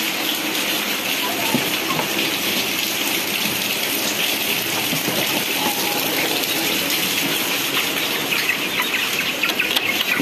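Rain falling steadily, a dense even hiss.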